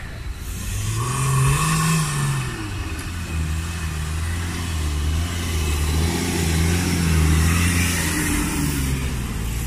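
Off-road 4x4 engine revving on a rock-crawling course. Its pitch rises and falls about a second in, then holds steady for several seconds and rises again near the end.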